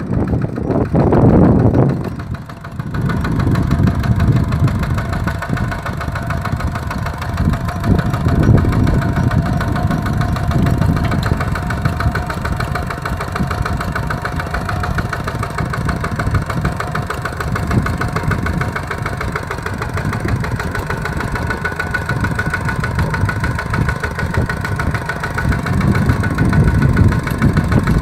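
Kubota RT-120 single-cylinder diesel engine running steadily while the tractor ploughs a rice field. The sound is louder and uneven for the first couple of seconds, then settles into an even run.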